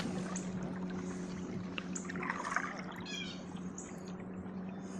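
Water trickling and lapping against a kayak's hull, with birds calling: a few short high chirps and one fuller call about three seconds in, over a steady low hum.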